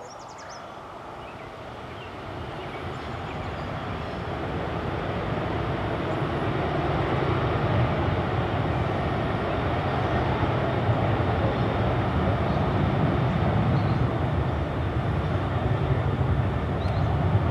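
Jet airliner's engines, a broad rumble that grows steadily louder over the first six seconds or so and then holds loud and steady.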